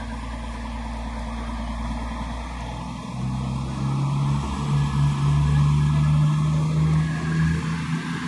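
East Midlands Trains Class 222 Meridian diesel multiple unit pulling out of the station, its underfloor diesel engines humming. About three seconds in, the engines power up: their note grows louder and rises slightly as the train accelerates away.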